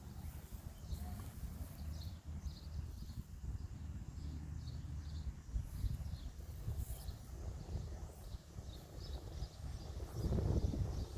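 A small bird chirping over and over, short high notes about twice a second. Under it a low rumbling noise, which swells near the end.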